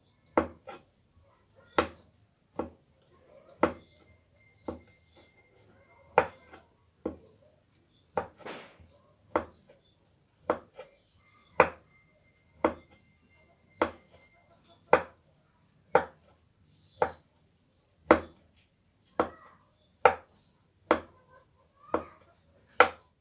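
Knife chopping pempek (fish cake) into pieces on a cutting board, in sharp, single strokes at an unhurried pace of about one a second.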